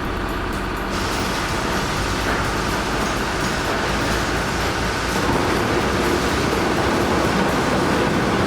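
Heavy construction machine running steadily, a dense mechanical drone that grows fuller and slightly louder about a second in and again about five seconds in.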